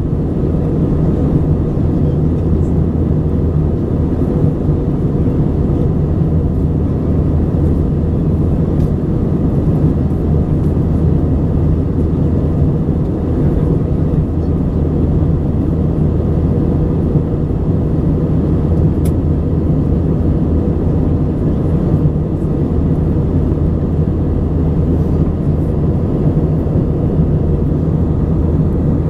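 Steady cabin noise of an Airbus A320 in flight: an even, low drone of the engines and airflow with a faint steady hum, unchanging throughout.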